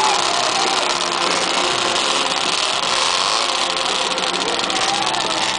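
Vintage Ski-Doo snowmobile's two-stroke engine running steadily at low speed as the sled creeps along.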